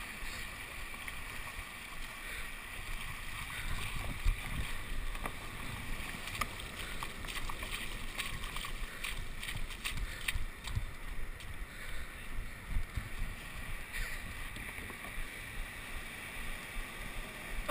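Steady wind and surf noise on the kayak-mounted camera's microphone, with scattered clicks and knocks through the middle.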